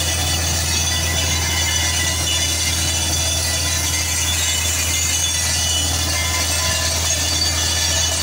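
Truck-mounted water-well drilling rig's engine running at a steady drone, with water gushing out of the freshly drilled borehole.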